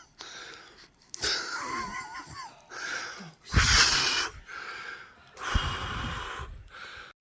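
A person's wheezing, gasping laughter in several separate bursts, with a faint voice in between.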